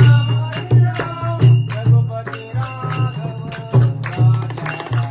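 Devotional bhajan accompaniment with no singing: drum and small hand-cymbal strikes keep a fast, even beat over a sustained low tone.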